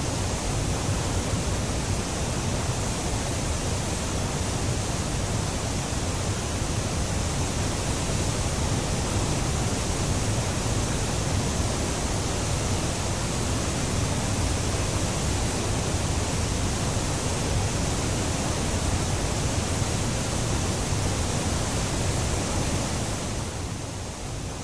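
Whitewater rushing over the rock ledges of a small river falls, a steady noise that eases off a little near the end.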